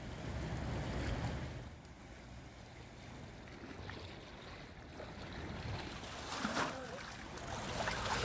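Wind buffeting the microphone over choppy, flood-high lake water washing against the shore wall. The rumble is strongest in the first couple of seconds, and the water grows louder and splashier near the end.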